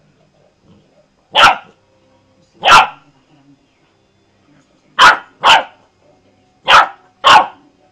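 Puppy barking: six short, sharp barks, two single ones about a second apart, then two quick pairs.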